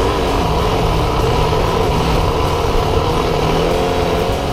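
KTM 530 EXC dirt bike's single-cylinder four-stroke engine running at riding speed, its note wavering a little, under a broad rushing noise, heard from a camera on the front fork.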